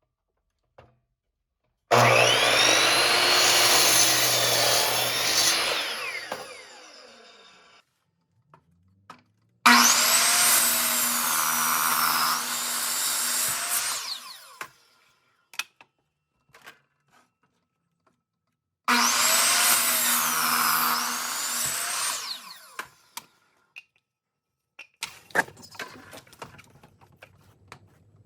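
Electric power saw cutting through wood boards three times, each cut a few seconds long, the motor's whine dipping in pitch under load and then winding down after each cut. Clicks and knocks of the boards being handled in between and near the end.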